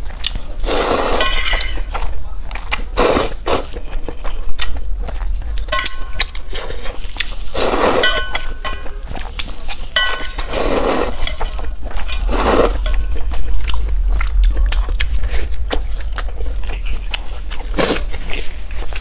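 Close-miked eating sounds: loud mouth noises of chewing and eating, in repeated short bursts, with a few light clinks of utensils against a bowl, over a steady low hum.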